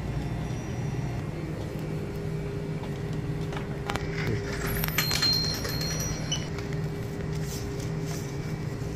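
Shop counter sounds: a steady low hum with a few clicks and clinks of handling about four to five seconds in, and a brief high beep just after.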